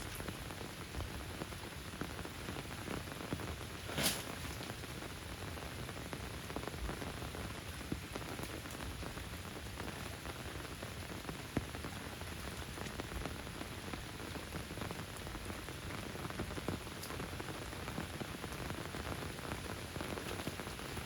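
Steady rain falling, an even hiss with scattered drop ticks and one sharp click about four seconds in.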